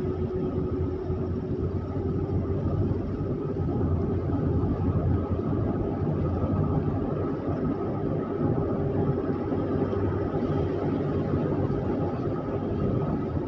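Steady engine and road rumble heard from inside a moving vehicle, with a faint constant hum over it.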